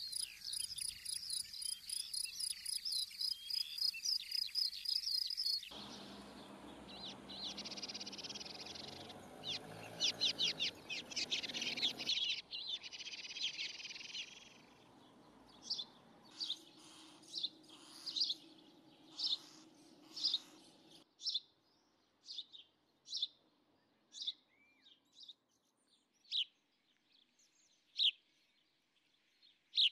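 First an insect's rapid, regular chirring. Then several seconds of fast, dry clattering over a rushing noise. Then a small bird chirping short single notes about once a second, spacing out towards the end.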